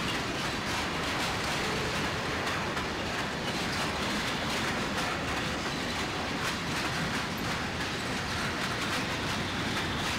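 Train cars rolling past: a steady rumble of wheels on rail, with many small clicks from the wheels passing over the rail joints.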